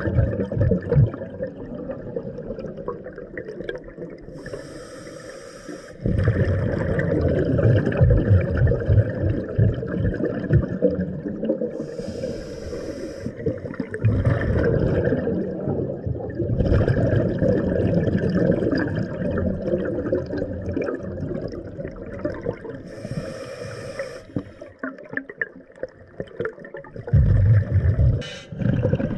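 Scuba diver breathing through a regulator underwater: three hissing breaths about nine seconds apart, with the bubbling and gurgling of exhaled air in between.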